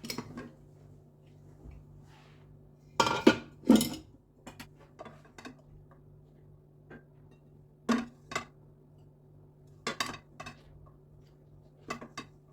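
Dishes and cutlery clinking and knocking in a scatter of separate strikes, the loudest pair about three seconds in, over a faint steady low hum.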